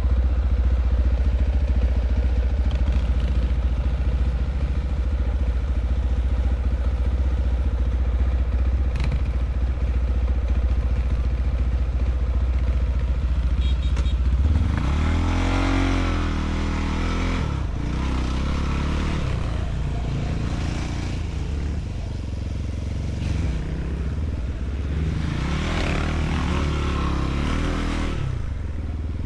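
Enduro motorcycle engine running at a steady low pitch, then from about halfway its revs rise and fall again and again as it is throttled over rough ground.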